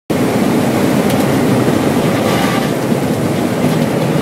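Cabin noise inside a Mercedes-Benz 180E track car at speed: loud, steady engine, road and wind noise that cuts in suddenly just after the start.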